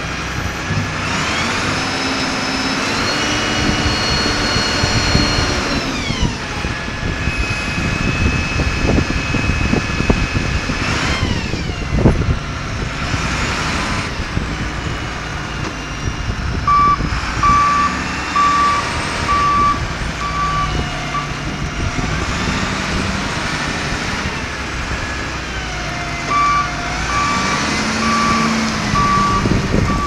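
Volvo (Michigan-badged) L90 wheel loader's diesel engine running, revving up a second in and dropping back a few seconds later, with a sharp knock partway through. Its reverse alarm beeps steadily, about two beeps a second, for a few seconds past the middle and again near the end.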